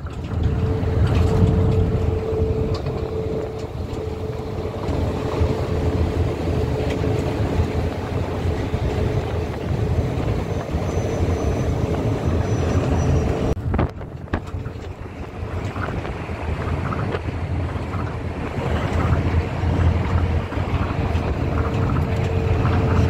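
Tokyo Monorail train running, heard from inside the car: a steady low rumble of the rubber-tyred car travelling along its guideway beam, with a steady humming tone that fades about halfway through and returns near the end. The rumble briefly drops about 14 seconds in.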